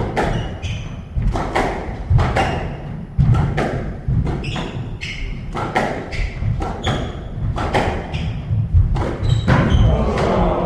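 Squash rally: the ball cracks off racquets and walls in a quick run of sharp thuds, roughly two a second, with short high squeaks from players' shoes on the wooden court floor.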